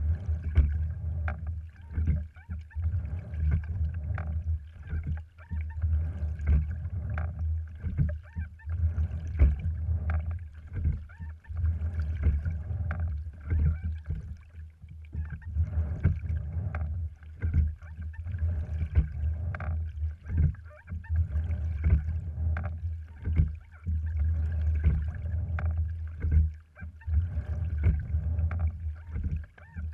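A cedar-framed, cloth-skinned rowing wherry rowed with sculls on a sliding-seat rig: water washing along the hull under a steady low rumble, with frequent knocks and clicks from the oars and rigging. The sound swells and eases with each stroke.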